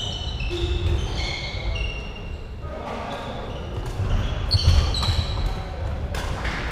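Badminton doubles rally on a wooden sports hall floor: trainers squeaking in short high chirps as players move, thuds of footsteps, and sharp racket-on-shuttlecock hits, several of them in the second half. The sound echoes around a large hall.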